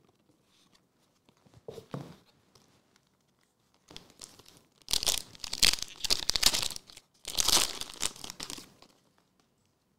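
Foil Pokémon booster pack (Japanese Shiny Star V) being torn open and crinkled. There are a few faint handling rustles, then two loud bursts of tearing and crinkling from about halfway through, the second following close on the first.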